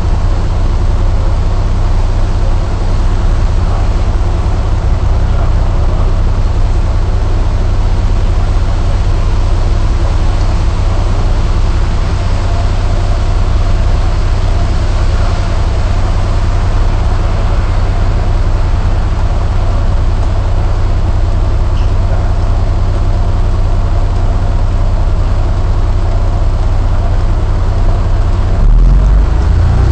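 Diesel engine of a KMB S3V Volvo Olympian non-air-conditioned double-decker bus idling steadily while the bus stands, heard from inside on the upper deck with a steady hiss of heavy rain. Near the end the engine note rises sharply as the bus pulls away.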